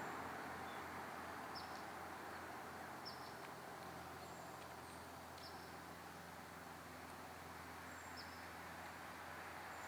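Quiet outdoor ambience: a steady low hum and faint hiss, with a few short, high chirps every couple of seconds.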